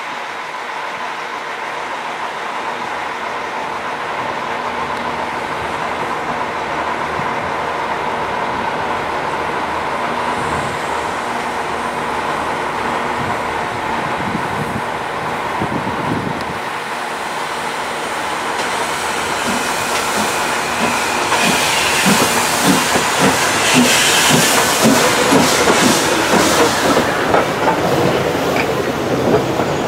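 Steam locomotive No 85 Merlin, a three-cylinder compound 4-4-0, moving slowly at close range. Steam hisses and the wheels clack over rail joints and points, getting louder in the second half as it draws close.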